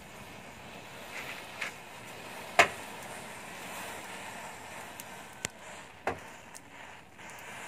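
Massed matchsticks burning: a steady rush of flame with a few sharp crackles and pops as match heads flare. The loudest pop comes about two and a half seconds in, and two more come about five and a half and six seconds in.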